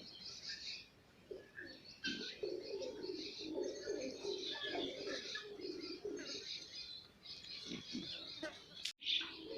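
Domestic pigeons cooing in a low, continuous warble, with many short high chirps mixed in.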